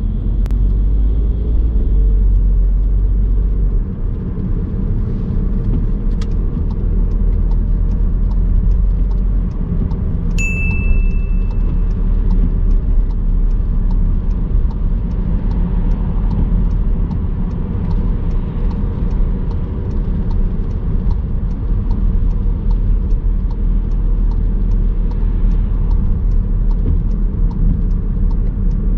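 Steady engine and road rumble heard inside a moving car's cabin. A regular light ticking runs through most of it, and there is a single short electronic beep about ten seconds in.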